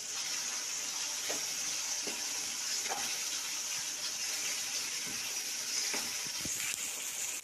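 Onion, tomato and ginger-garlic paste sizzling steadily in hot oil in a kadai, with occasional light strokes of a spoon stirring it.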